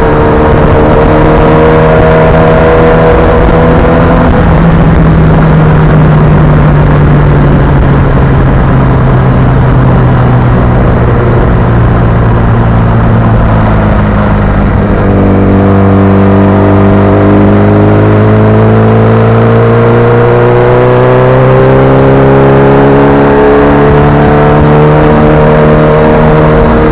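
Sport motorcycle engine running at speed under rushing wind noise. Its note sinks slowly through the first half, then, after a change about halfway through, climbs steadily as the bike speeds up again.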